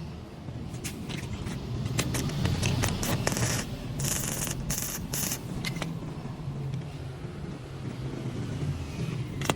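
Scraping, rubbing and sharp clicks of hand work on metal parts, over a steady low rumble. The scraping sounds are thickest a couple of seconds in.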